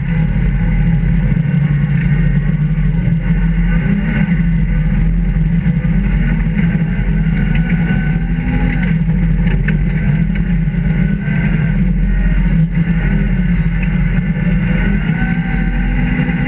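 Rally car's engine heard from inside the cabin, running hard and steady in third gear, its pitch rising slightly a few times.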